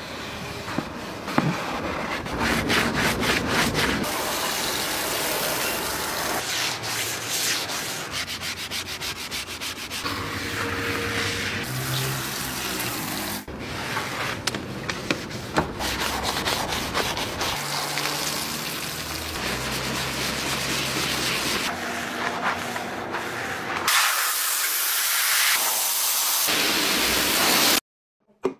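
Cloth and sponge scrubbing over the plastic trim and door sills of a car interior, a continuous scratchy rubbing that changes abruptly at each cut between clips. Low humming tones come and go in the middle.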